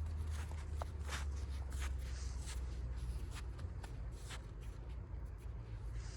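Footsteps or shuffling on rough ground, about two light scrapes a second, thinning out after about four and a half seconds, over a steady low rumble.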